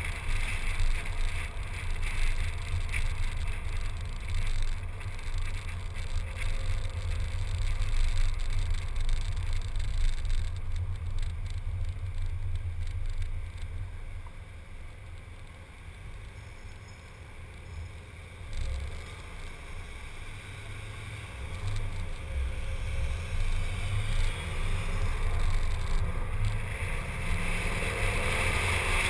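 Wind and road rumble on a GoPro mounted outside on a moving car's hood: a steady low buffeting that eases off in the middle as the car stops at an intersection, then builds again as it pulls away and picks up speed.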